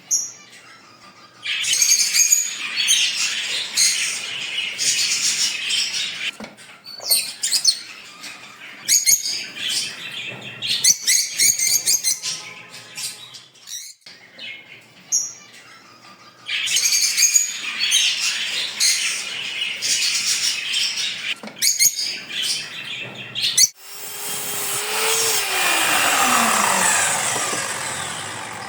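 Pet parrots chattering and chirping in repeated bursts. Near the end a whirring sound comes in and falls steadily in pitch over a few seconds.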